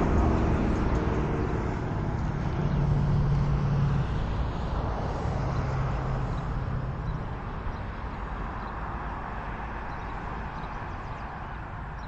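Outdoor traffic noise: a motor vehicle's low engine hum over a steady rush that slowly fades away.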